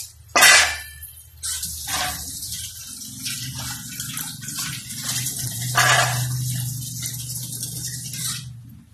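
Pork pieces sizzling in a stainless steel pan over a high gas flame: a steady hiss that sets in after a sharp metal clank of the pan about half a second in, and stops suddenly near the end.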